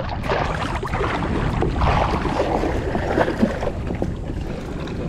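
Shallow water sloshing and splashing around a wader's legs and a plastic kayak hull, with a steady low rumble of wind on the microphone and scattered small knocks from the kayak seat and straps being handled.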